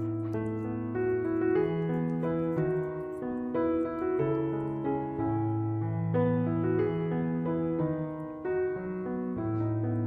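Background piano music: a slow, gentle melody over held bass notes.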